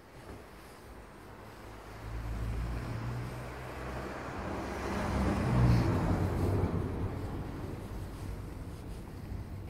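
A motor vehicle's engine passing by: it comes in about two seconds in, grows to its loudest a little past halfway, then slowly fades.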